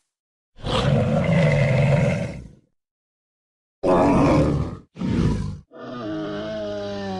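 Monster roar and growl sound effects for a CGI werewolf-like beast. A loud roar lasts about two seconds and stops sharply, followed by dead silence. Two short growls come next, then a long low call whose pitch slowly falls.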